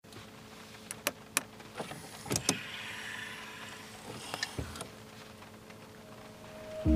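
Bentley's rotating dashboard display turning over from the three analogue dials to the touchscreen: several sharp clicks and clunks, then a short motor whirr, with a few more light clicks later on.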